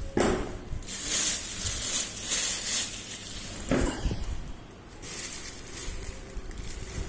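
Packaging being handled during unboxing: rustling and crinkling in uneven bursts, with a sudden knock-like handling sound twice, once near the start and once about midway.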